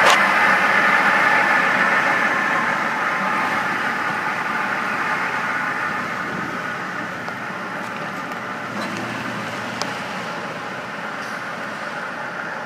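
2007 Chevrolet Avalanche pickup pulling away and driving off, its engine note and tyre noise fading steadily as it moves off.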